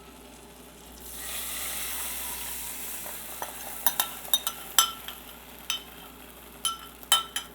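Soy sauce, water, sugar and vinegar sauce hitting a hot buttered pan, sizzling for a couple of seconds starting about a second in. Then a utensil stirring it, with a string of sharp clinks against the pan.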